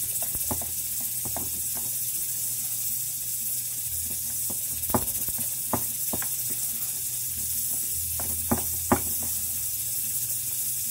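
Metal spoon clicking and scraping against a stainless steel mixing bowl while dumpling dough is stirred, a few sharper taps about halfway through and near the end, over a steady hiss.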